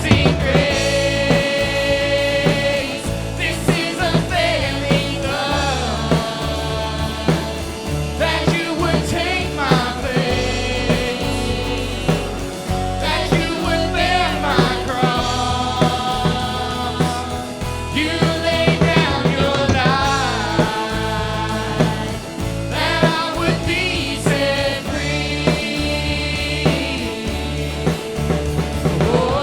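Contemporary Christian worship song with a sung melody over a band of drum kit and bass.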